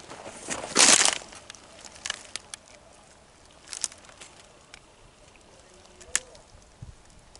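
Footsteps crunching and clicking on loose rock and gravel, with one loud scraping crunch about a second in and scattered small clicks after it.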